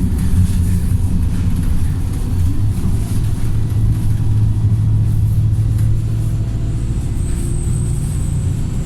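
Wright StreetLite single-deck bus engine running under load, a steady low drone that grows stronger from about three seconds in and eases slightly around six seconds; the engine has been remapped, which gives it its thrashy sound.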